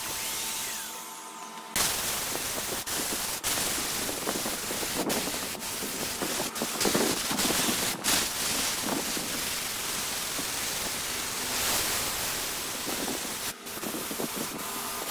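Wood lathe turning wood, a cutting tool scraping into the spinning wood with a steady hiss and scattered clicks. It drops away briefly about a second in, then comes back abruptly.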